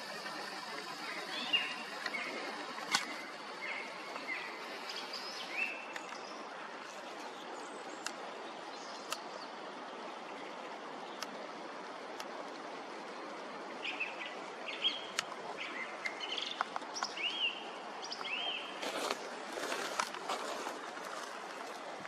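Song thrush singing short repeated phrases of whistled notes, in a burst a second or so in and another from about 14 s, over the steady rush of a spring meltwater stream. A few sharp clicks are scattered through.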